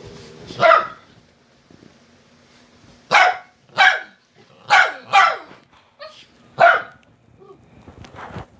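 A pet dog barking to wake its owner: single short, sharp barks, one about a second in, then a run of five between about three and seven seconds in.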